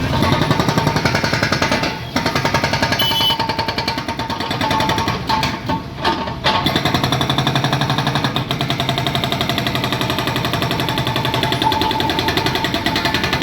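Jackhammer breaking up a road surface for repair, rapid steady hammering with short pauses about two seconds in and again around six seconds in.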